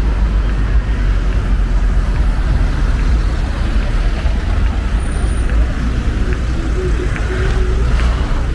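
City street traffic noise: a steady low rumble with a hiss above it.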